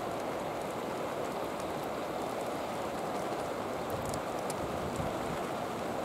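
Steady rain falling, with a few light drop ticks about four seconds in.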